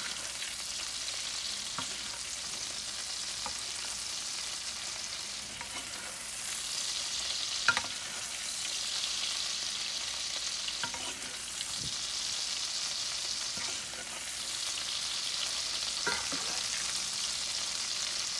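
Sirloin steak sizzling in butter and oil in a cast iron skillet as it is basted with a spoon. The steady sizzle swells and eases as the hot juices are spooned over, with a few light clicks of the metal spoon against the pan, the sharpest about eight seconds in.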